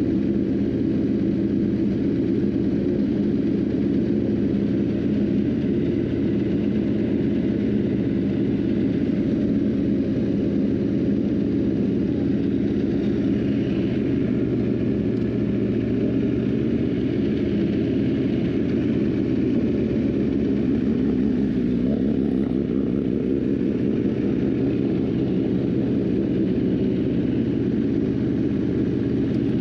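Sport-bike engine idling steadily.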